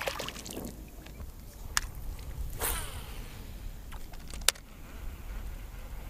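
Small splashes fading as a released bass swims off beside the boat, then a few sharp clicks and a knock as a baitcasting rod and reel are handled, over a low steady rumble.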